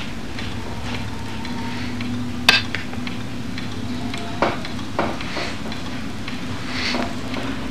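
A barber handling pomade jars and combing pomaded hair: a few sharp clicks and taps, the loudest about two and a half seconds in and two more around four and a half and five seconds, over a steady low hum.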